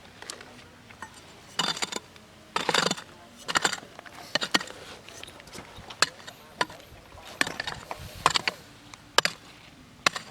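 A hand digging tool knocking and scraping against stones and soil in irregular strokes, about one every half second to a second, with a few longer scrapes in the first three seconds.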